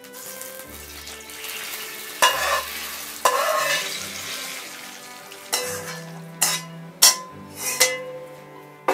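A metal ladle scooping hot sauce out of a wok and pouring it into a stainless steel bowl: two splashy pours about two and three seconds in, then several sharp clinks of the ladle against the metal in the second half.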